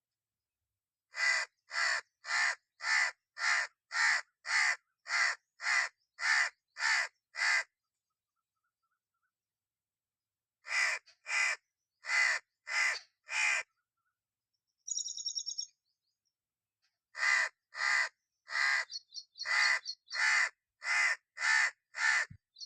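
Red-naped ibis calling: runs of loud, harsh calls evenly spaced about two a second, in three bouts with pauses between. A brief, higher, trilling call breaks the silence between the second and third bouts.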